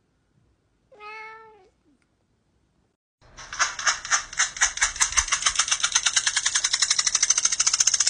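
A cat's single short meow about a second in. Then, from about three seconds in, a loud, rapid pulsing chatter from a tabby cat that speeds up as it goes.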